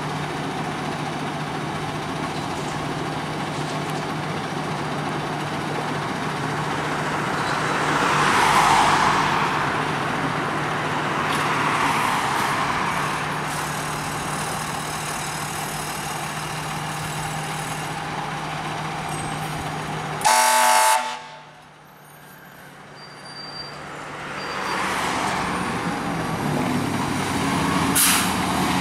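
Fire engine's diesel engine idling with a steady low hum, swelling twice with rushing noise. About two-thirds through, a short loud horn blast, then the sound drops away suddenly and the fire engine is heard pulling out and driving off, growing louder toward the end.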